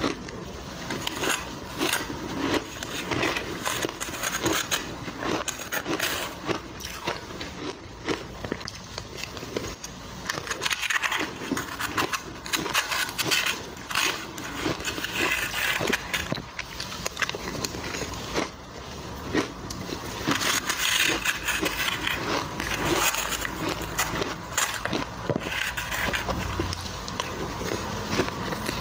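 Crushed ice crunching and crackling as it is chewed, with a metal spoon scraping and scooping ice in the bowl.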